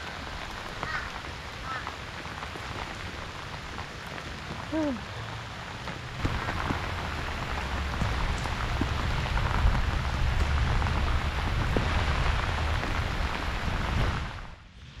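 Heavy rain falling steadily. About six seconds in it gets louder, with a low rumble underneath, then drops off sharply near the end.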